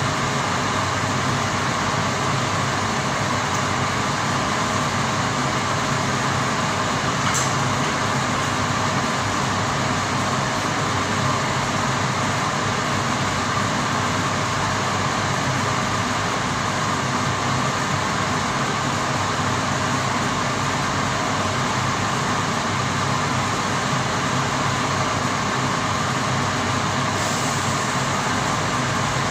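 Steady, even mechanical drone of equipment-room machinery, a low hum with a stronger mid-pitched band, unchanging throughout, with one faint click about seven seconds in.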